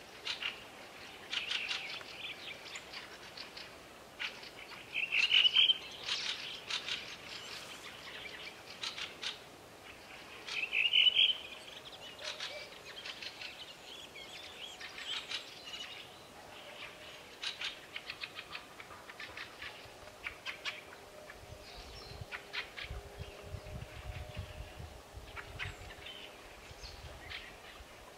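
Outdoor ambience of scattered dry clicks and rustles, with two loud rising chirps about five and eleven seconds in, and a low rumble in the last third.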